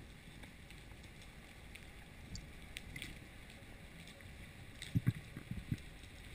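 Underwater sound heard through a diving camera's waterproof housing: a steady, muffled water hiss with a few faint clicks, and a short run of low thumps about five seconds in.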